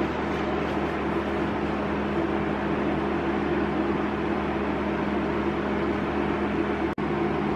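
上豪 IH-700 induction cooker running at its maximum power setting: the steady whirr of its cooling fan over a low electrical hum. The sound breaks off for an instant near the end.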